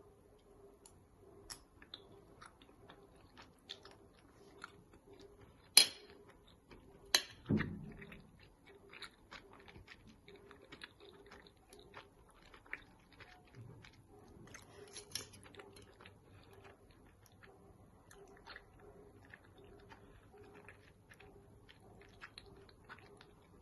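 A person chewing and biting food, with many small mouth and handling clicks and two louder sharp clicks about six and seven seconds in.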